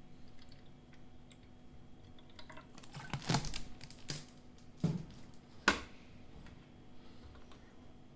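Scattered light clicks from an object being handled, with four louder sharp clicks or knocks in the middle, over a faint steady hum.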